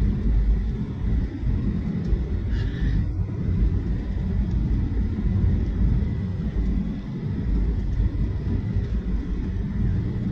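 Boeing 737 jet airliner: a steady low rumble of its engines and airflow.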